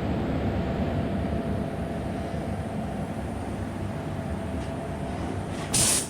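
Steady machine rumble with a faint hum. Near the end, a short loud hiss of air from a paint spray gun as its trigger is pulled.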